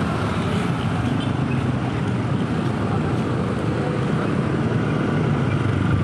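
Steady road traffic noise from passing vehicles, with no horn sounding.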